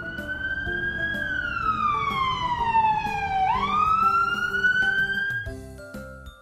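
Ambulance siren wailing: a slow fall in pitch for about two and a half seconds, then a quick rise, cutting off about a second before the end. Light background music plays underneath.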